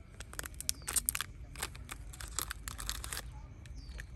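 The plastic wrapper of a packaged ice cream cone being torn open and crinkled by hand: a quick run of tearing and crackling noises that stops about three seconds in.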